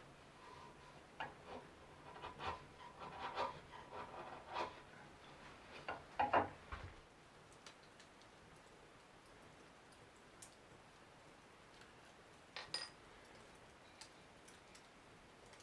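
A hand tool working wood: a series of short, irregular scraping strokes that stop about seven seconds in, followed by a few light clicks.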